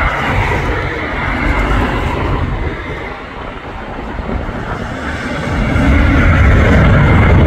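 Twin-engine jet airliner (Airbus A320neo-family) climbing out at takeoff power: a steady jet roar with a thin high whine, the low rumble swelling and growing louder about two-thirds of the way through as the aircraft passes closer.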